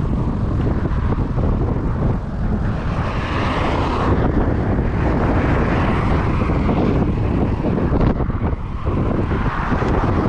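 Strong wind buffeting the microphone, a loud, steady rumble with rushing hiss; a brighter hiss swells and fades in the middle.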